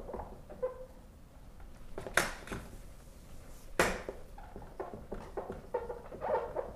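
Dry-erase marker writing on a whiteboard: a run of short squeaking and scratching strokes, with two sharp clicks or taps about 2 and 4 seconds in.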